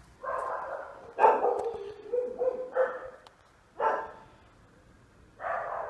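A dog barking repeatedly, about six short barks with pauses between them.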